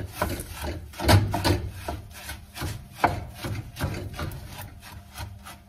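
Wooden spoon scraping and stirring Rice Krispies cereal in a sticky mixture around a nonstick frying pan, in uneven strokes, the loudest about a second in and again about three seconds in.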